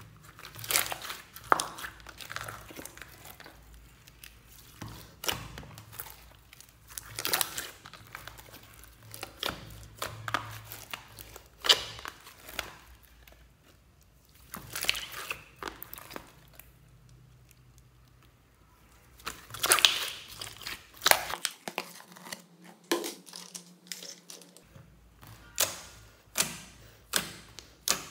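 Wet, sticky slime being kneaded and pressed by hand, giving irregular squelches and sharp pops. Near the end the pops come in a steady run, about three every two seconds, as fingers press into the slime.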